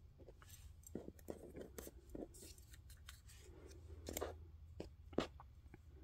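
Soft rustling and crinkling of paper and fabric craft scraps being picked up and laid on a cutting mat, with scattered light clicks and taps; a sharper click about five seconds in.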